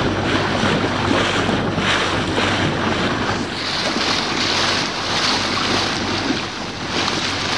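Boat under way: the motor hums steadily while water rushes and splashes against the hull, and wind buffets the microphone.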